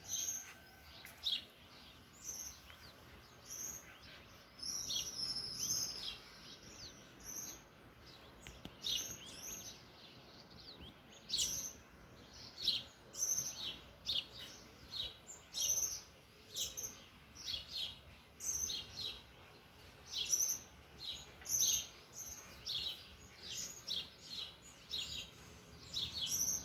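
Dawn chorus of many small birds: short, high chirps, most sliding downward, repeating one after another, growing busier about halfway through.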